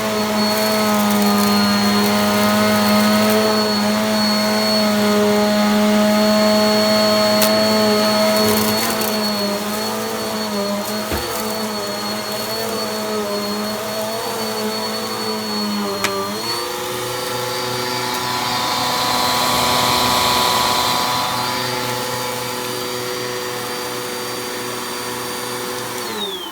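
Dirt Devil Featherlite bagless upright vacuum cleaner running steadily with a motor whine. The pitch drops and settles lower about 16 seconds in, and the motor starts to wind down right at the end. It is running with a freshly fitted brushroll belt replacing one that was worn and stretched, and now picks up properly.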